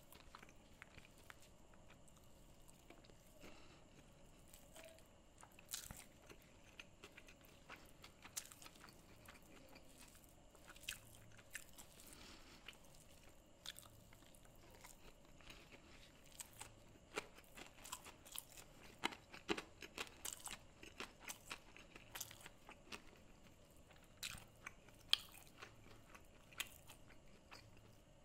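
Close-miked chewing of a hand-fed mouthful of red rice and curry, quiet overall, with scattered sharp crunches and wet mouth clicks. The crunches come more often in the second half.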